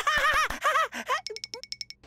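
Cartoon chick's high, squeaky voice chirping excitedly in quick rising-and-falling yelps. About a second in, the chirping gives way to a rapid, evenly spaced run of about nine pitched ticks, a cartoon pitter-patter of small running feet.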